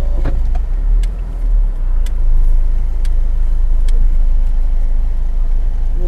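Steady low rumble of a Toyota car on the move, heard from inside the cabin: engine and road noise. A few light ticks come through about a second, two seconds and four seconds in.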